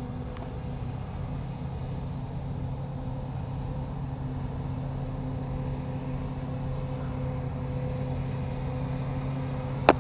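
Krone self-propelled forage harvester running steadily, a constant humming drone. A single sharp click just before the end.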